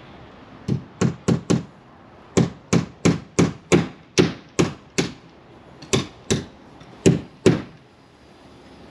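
Hammer driving nails into wood siding: about sixteen sharp strikes in quick runs of two to five, with short pauses between the runs.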